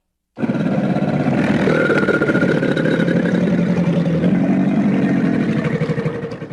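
Crocodile growling: a low, rapidly pulsing rumble lasting about six seconds.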